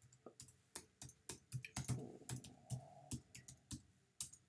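Typing on a computer keyboard: a run of irregular key clicks, about three or four a second.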